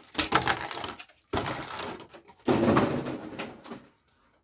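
Plastic and cardboard packaging from a trading-card collection box being handled, rustling and crinkling in three spells.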